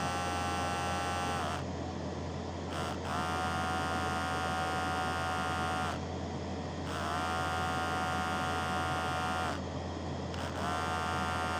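Electric hair trimmer's small motor buzzing in four spells, switched off and back on three times, its pitch sagging as it stops and rising as it spins up again, over a steady low hum: the trimmer being test-run after its charging repair.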